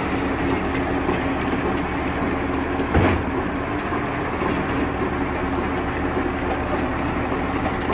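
Tractor engine running steadily while powering a round baler, with a string of short sharp clicks from the machinery and a single louder thump about three seconds in.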